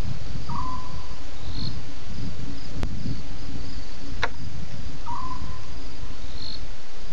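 Night crickets chirping steadily over a loud, steady low rumble. A short, slightly falling call comes twice, and there are a few sharp clicks.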